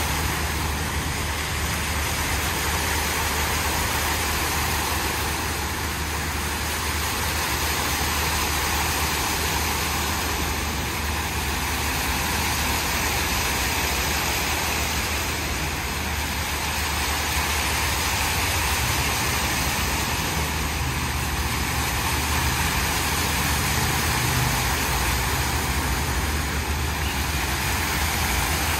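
Many small fountain jets splashing steadily into a shallow pool, an even rushing hiss with a low steady rumble underneath.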